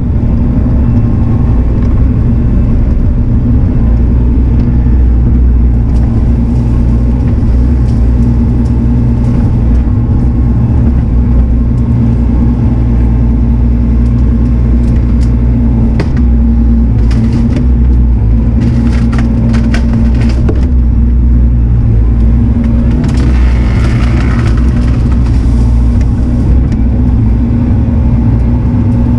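Diesel engine of a compact earthmoving machine running steadily under load while it moves dirt. Over it come sharp cracks and crunching, a run of cracks a little past halfway and a harsher crunching spell a few seconds later.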